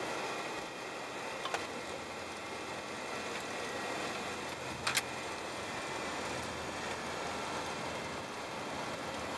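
Steady cockpit noise of a large aircraft rolling down the runway after touchdown: an even rush of engine and airflow. Two short clicks sound, one about a second and a half in and another near five seconds.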